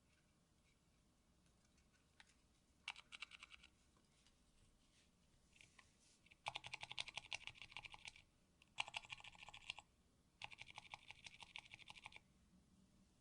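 Typing on a mechanical keyboard: four quick bursts of rapid key clicks, the longer ones lasting about a second and a half, with short pauses between them.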